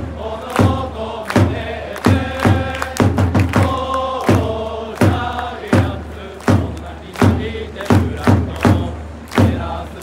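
Giants baseball cheering section chanting in unison, crowd voices carried along by a regular drum beat of about one to two strokes a second.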